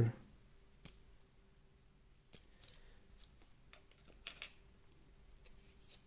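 Scattered light metallic clicks and taps as the small metal discs and spacers of a Rosengrens 32C 81P disc lock are handled, pulled from the lock body and set down in a tray.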